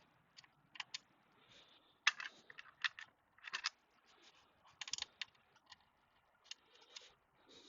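Scattered light plastic clicks and scrapes, a few at a time, from the Acer Revo One mini PC's case parts being worked and pried at by hand.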